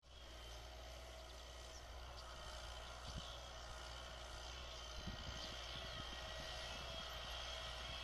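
Valmet 985 tractor's diesel engine heard faintly from across the field, a steady drone as it pulls an offset disc harrow, growing slightly louder.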